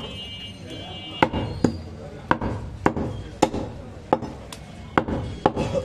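Butcher's cleaver chopping goat meat on a round wooden block: a run of about ten sharp chops, roughly two a second, starting about a second in.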